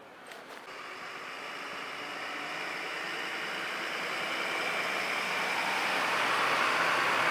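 Mercedes-Benz fire engine driving slowly closer on a wet road: its diesel engine running under the hiss of tyres on wet asphalt, growing steadily louder as it nears.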